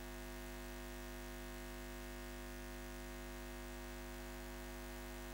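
A faint, steady hum of several held tones over a soft hiss, unchanging throughout.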